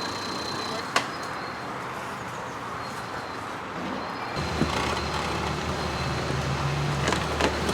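Off-road vehicle engine running at low speed over rock, with one sharp knock about a second in; the engine note comes up suddenly about four and a half seconds in and holds.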